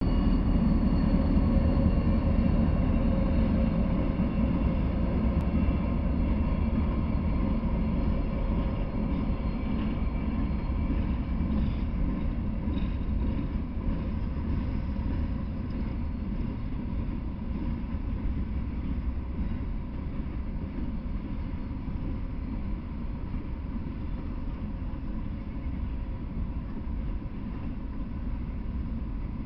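Norfolk Southern freight train passing: a steady rumble of open-top hopper cars rolling along the rails, with a few steady tones from the diesel locomotive in roughly the first twelve seconds that fade as it moves off. The rumble slowly grows quieter.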